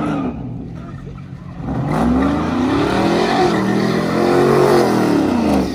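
Car engine revving hard during a donut in a parking lot, its pitch climbing and falling twice over about four seconds, with the hiss of spinning tyres. The sound cuts off suddenly near the end.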